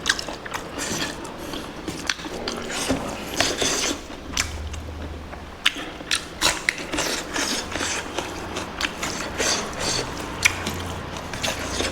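A person chewing and crunching food close to the microphone: irregular crisp crackles and clicks of bites and chewing, as of firm pork meat and vegetables being eaten.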